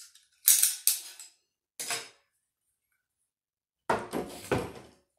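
Metal parts of an AR-15 upper receiver being handled as the bolt carrier is slid out: a few sharp metallic clinks and scrapes, then a longer clattering handling noise with a knock near the end.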